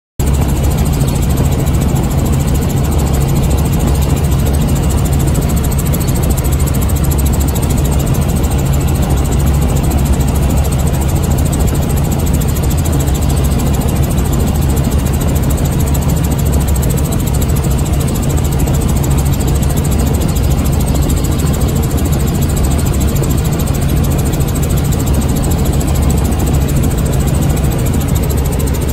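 Helicopter in flight: a loud, steady drone of engine and rotor noise with a strong low hum, starting suddenly.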